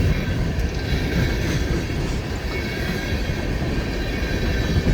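Empty coal hopper cars of a long freight train rolling past, a steady rumble of steel wheels on rail.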